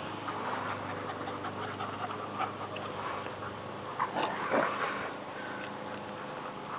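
Dogs playing together, with scuffling and panting and a louder flurry of dog noise about four seconds in.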